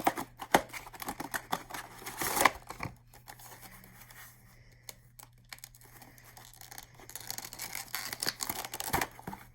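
A diecast model airliner's packaging being unboxed by hand: cardboard flaps and the inner packing scraped, tapped and rustled in short bursts, busiest about two seconds in and again near the end.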